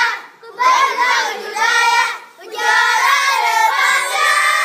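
A group of children singing together in short phrases, with brief breaks between them.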